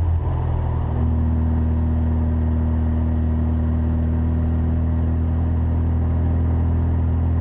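Engine of an Abarth hillclimb car heard from inside the cabin under load; its note dips briefly at the start, then holds a steady pitch from about a second in.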